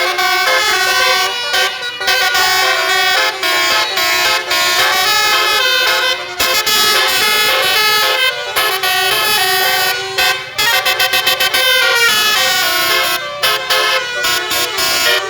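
Multi-tone 'telolet' (basuri) musical horn playing a melody of stepped notes, with a run of quick short toots about ten seconds in.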